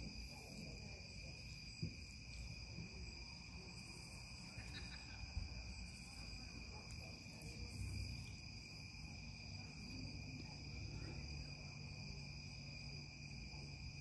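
Crickets trilling steadily, a thin high insect chorus, over faint low handling noise with a few small knocks.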